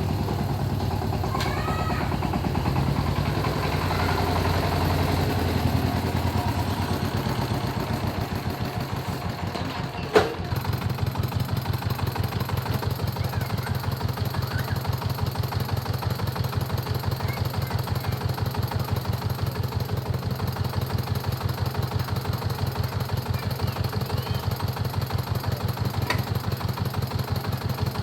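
Diesel engine of a corn-shelling machine running steadily with an even chugging beat, with one sharp knock about ten seconds in.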